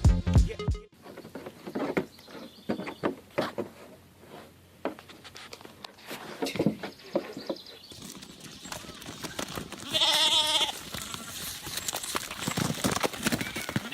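Backing music cuts off about a second in, leaving scattered knocks and clatter. About ten seconds in comes a single loud, wavering bleat from a goat or sheep, lasting under a second.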